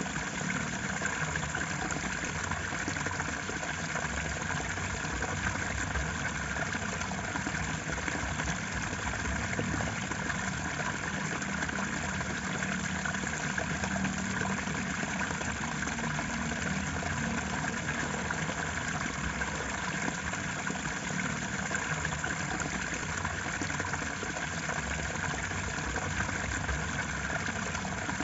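Steady rushing of flowing water, an even, unbroken wash of sound.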